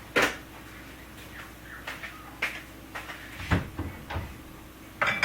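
Kitchen cupboard doors opening and shutting, with a few sharp clicks and knocks of things being handled and set down. The loudest knocks come just after the start and near the end, with low thuds in the middle.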